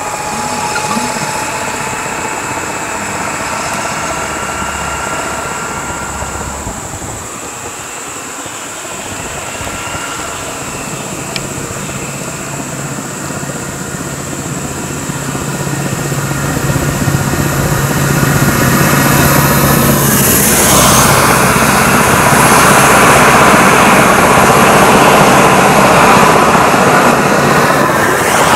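Road traffic: vehicle engines passing on the road, building over the second half into a loud steady drone as a lorry approaches.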